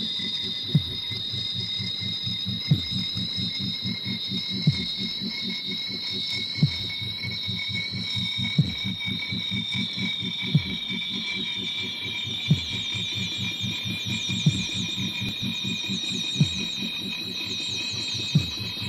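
Harsh noise / power electronics recording: high electronic whining tones that warble and drift in pitch over a fast low throbbing pulse, with a sharp thump about every two seconds.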